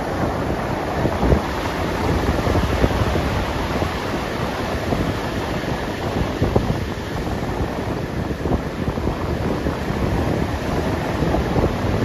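Ocean surf washing up the beach, a steady rushing wash, with wind buffeting the microphone in uneven low gusts.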